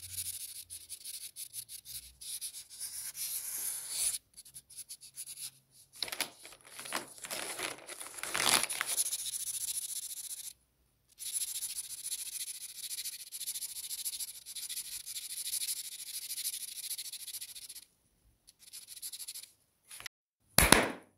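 Felt-tip marker scribbling on paper: fast, scratchy back-and-forth colouring strokes in runs broken by short pauses. There is a brief louder rub near the end.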